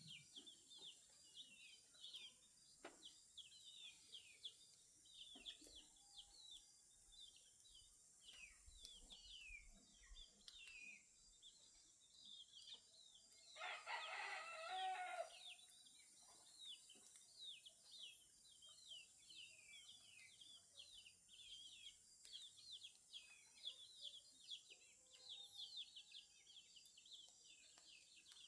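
Faint dawn chorus of small songbirds chirping in short, quick, falling notes throughout, with a rooster crowing once about halfway through.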